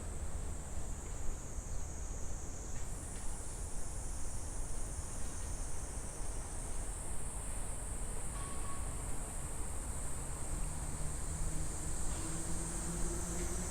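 Cicadas buzzing in a steady high-pitched chorus that steps up slightly in pitch about three seconds in, over a low rumble.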